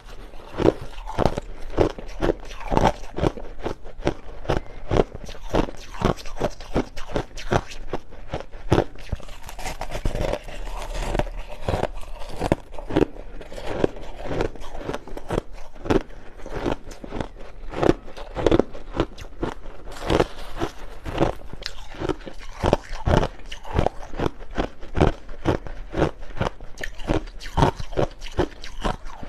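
A person chewing and biting crushed ice close to the microphone: a steady run of sharp crunches, several a second.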